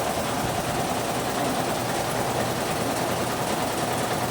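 Single-head computerized embroidery machine running steadily, its needle stitching in a rapid, even clatter.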